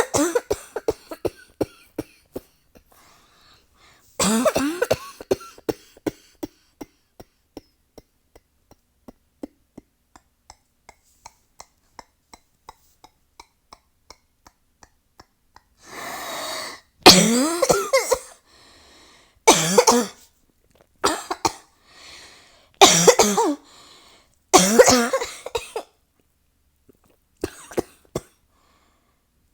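A person in a prolonged coughing fit: harsh coughs, then a long run of short coughs that grow weaker and trail off over about ten seconds, followed by a further series of heavy, harsh coughs.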